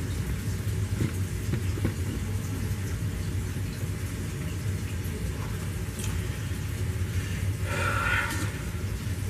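A steady low hum with small handling noises, and a short, brighter sound about eight seconds in.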